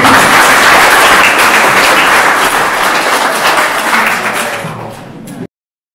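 Audience applauding, dying down over the last second or so and then cutting off abruptly.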